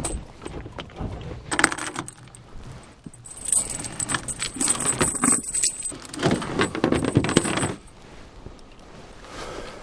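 Metal objects clinking and rattling, with many short clicks, busiest from about one and a half to eight seconds in.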